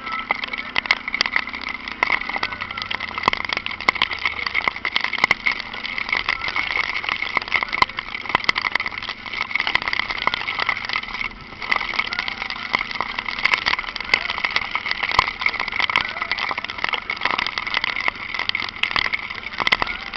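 Dense crackling patter of raindrops hitting the microphone, with the single-cylinder engine of a Honda Falcon 400 motorcycle running low underneath.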